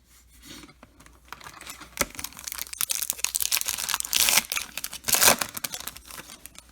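A 2021 Topps Allen & Ginter Chrome card pack's wrapper being torn open and crinkled in the hands. The crackling builds from about a second in and is loudest near the end, then dies away.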